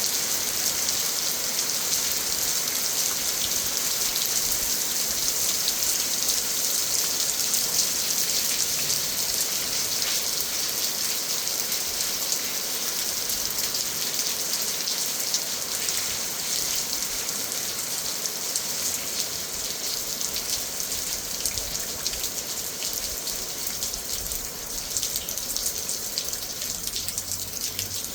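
Steady rain falling, a dense hiss of many drops, easing slightly near the end.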